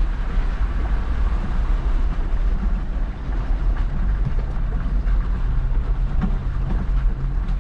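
Jeep engine running at low speed while the vehicle crawls off-road, a steady low rumble.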